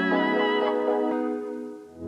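Background music: sustained keyboard chords that fade away near the end.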